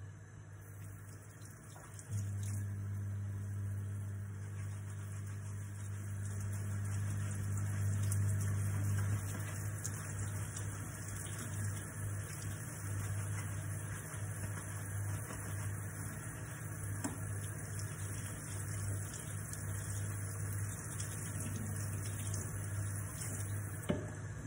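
Tap water running into a stainless steel kitchen sink while a lemon is rinsed under the stream, over a steady low hum that comes in about two seconds in and is strongest for the next several seconds.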